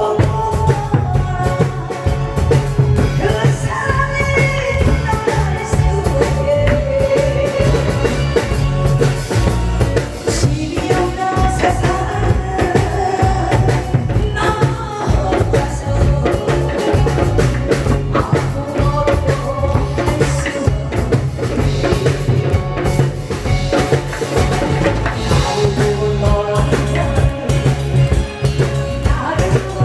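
Loud music with a steady drum beat and bass under a wandering melody line, as played through a performance sound system.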